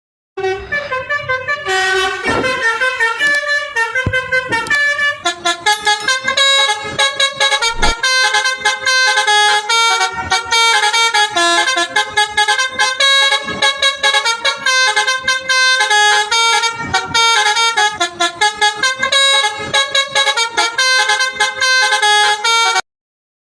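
Telolet bus horn, a multi-tone horn playing a quick melody of short chords, note after note. It begins half a second in and cuts off abruptly near the end.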